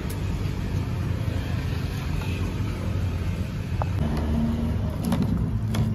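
Steady low rumble with a few light clicks; a faint steady hum joins about four seconds in.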